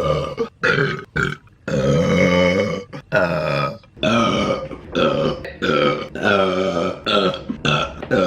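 A woman burping loudly, a string of burps one after another with short breaks, roughly one a second, the longest lasting over a second.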